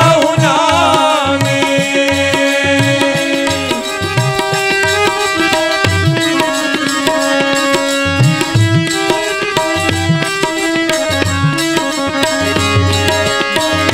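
Instrumental interlude of devotional kirtan: a harmonium holds a sustained melody over a steady rhythm of hand-drum strokes. The last sung note trails off in the first second.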